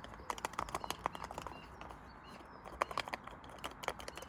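Rapid clattering clicks and knocks in two spells, one near the start and one about three seconds in, with faint bird chirps in the background.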